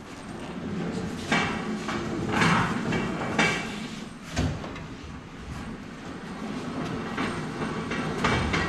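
Stripped car body being pushed by hand across the shop floor: a steady rolling rumble with several clunks and rattles from the loose shell.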